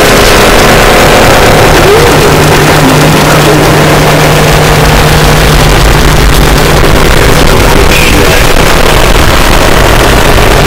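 Harsh noise music: a dense, heavily distorted wall of noise at full loudness, with a steady low hum entering about two seconds in and dropping out a little past halfway.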